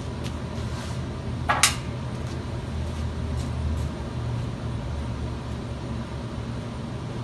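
Steady low hum of shop equipment, with one sharp metallic clink about a second and a half in and a few faint ticks.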